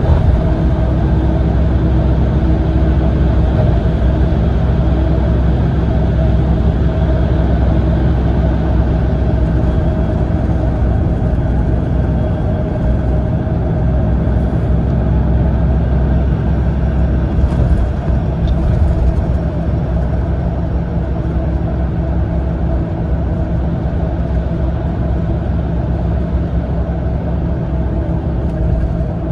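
Cabin noise inside a Mitsubishi Fuso Aero Ace coach cruising on the expressway: a steady low drone of the diesel engine and tyres on the road, with a constant hum.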